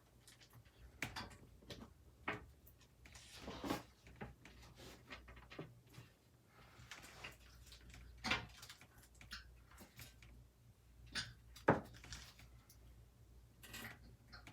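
PC case parts being handled during assembly: scattered light clicks and knocks with a couple of brief scrapes. The loudest knocks come about 8 and 11.5 seconds in.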